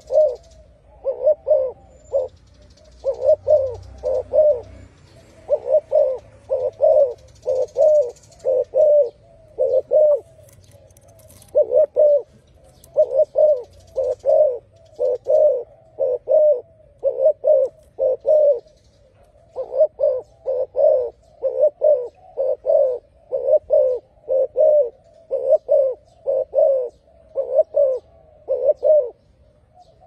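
Spotted dove cooing over and over, its low coos coming in short phrases of two to four notes with brief pauses between phrases.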